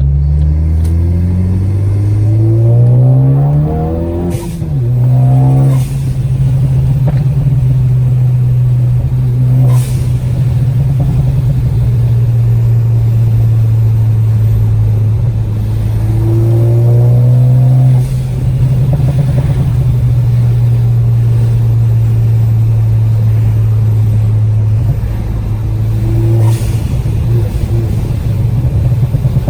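Ford Focus ST's turbocharged four-cylinder through a Cobb exhaust with catless downpipe, accelerating with rising pitch for about four seconds, then a sharp pop as the pitch drops. It then holds a steady drone under way, with a few more cracks and pops from the tuned exhaust and a rougher crackling near the end as the throttle eases.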